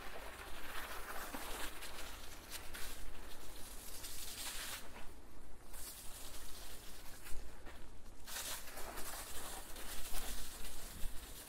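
Bicycle ride: tyres rolling along the path, under a steady low rumble of wind buffeting the binaural microphones. The higher hiss thins out twice briefly about halfway through.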